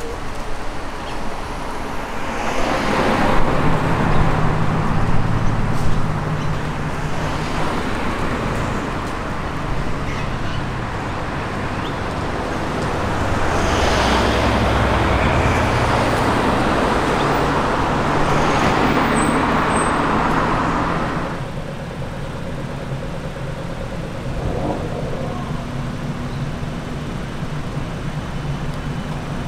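Street traffic: cars driving past one after another, their tyre and engine noise swelling twice, with a steady low hum beneath each swell.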